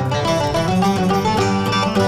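Background instrumental music: a lively tune made of many short, quick notes at a steady level.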